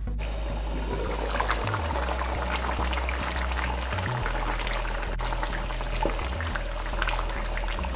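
Chicken and green papaya curry bubbling at a simmer in a skillet: a dense, steady bubbling with many small pops. Background music plays underneath.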